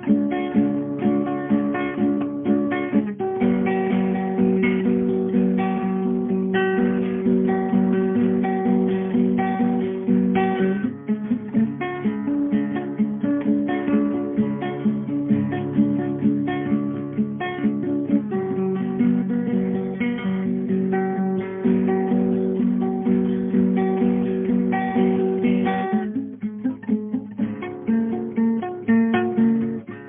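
Background music: acoustic guitar strummed, with a steady run of rapid chords.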